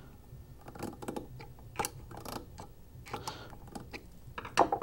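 Flathead screwdriver prying a Teflon end cap off a finned metal reaction chamber: scattered light clicks and short scrapes of the steel tip against the fins and cap, with a louder clatter near the end.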